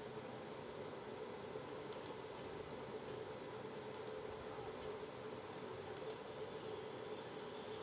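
Faint computer-mouse clicks, each a quick paired click, three of them about two seconds apart, over a steady hum and hiss of room noise.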